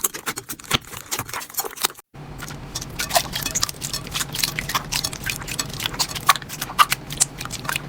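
Slime being squeezed and pressed by hand, giving quick, irregular crackling clicks and squishes. About two seconds in the sound cuts out briefly, and then the clicking resumes over a faint low hum.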